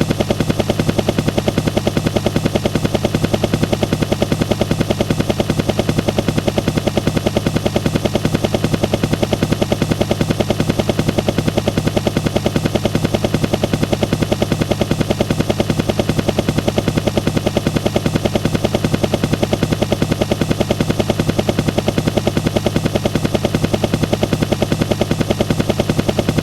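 Helicopter heard from inside the cabin: a fast, even rotor beat over a constant low engine drone, steady throughout.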